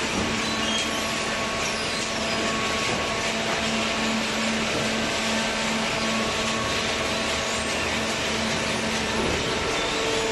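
Hydraulic cardboard baler running: a steady machine noise with a constant hum from its pump and motor.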